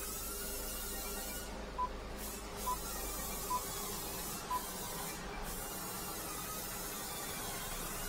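Four short, high confirmation beeps from the Jaguar XE's climate-control buttons and touchscreen as they are pressed, about a second apart, over a steady background hum and hiss.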